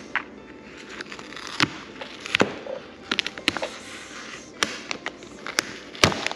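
Printed vinyl wrap sheet crackling and snapping as it is handled and repositioned on a UTV body panel: an irregular string of sharp crackles, the loudest about six seconds in.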